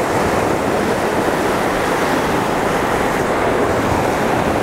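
Ocean surf breaking and washing over rocks in a steady, loud rush of white water.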